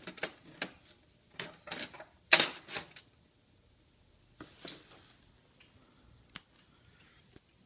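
Clicks and rattles of a project box being handled and opened: a quick run of sharp clicks over the first three seconds, then a few scattered single clicks.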